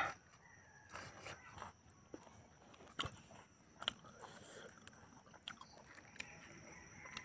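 Eating by hand: chewing and mouth clicks, with a few soft, wet squishing sounds from fingers mixing pieces of curried pork. A louder smack right at the start, then scattered small clicks.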